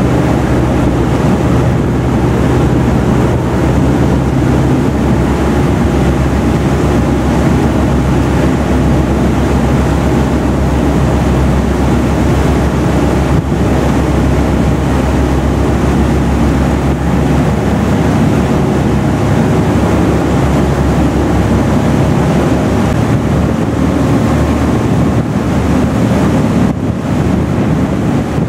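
A river cruise boat's engines drone steadily while water rushes along the hull in its wake, with wind buffeting the microphone.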